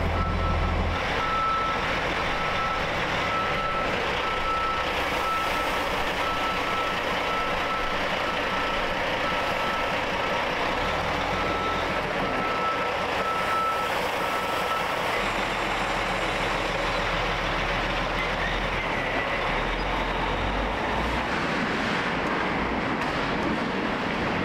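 Semi truck's reversing alarm beeping steadily over the truck's engine running as it backs up; the beeping stops about fifteen seconds in while the engine keeps running.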